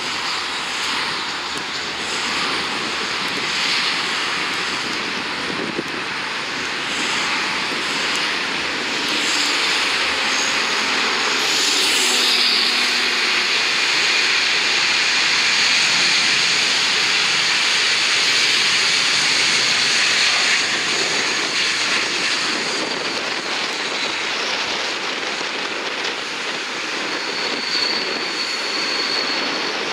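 Jet engines of a Delta Airbus A321 running as it rolls along the runway, a steady rushing roar that swells in the middle and eases off, with a thin high whine near the end.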